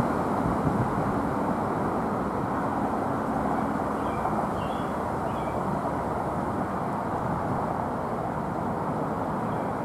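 Jet engines of an Airbus A320 airliner on approach, a steady rumble that slowly fades as the plane moves away.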